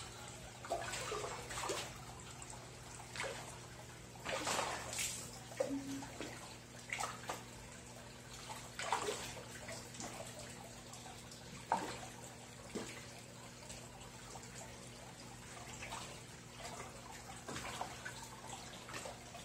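Tambatinga fish feeding on pellets at the surface of a water tank, with irregular splashes and slurps. The busiest stretch is about four to five seconds in and a sharp splash comes near twelve seconds, over a steady low hum.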